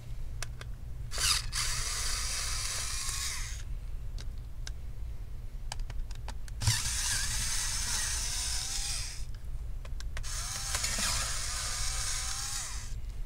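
Small electric screwdriver running in three bursts of two to three seconds each, backing out the screws around a laptop battery, with a faint motor whine in each run and a few small clicks before the first.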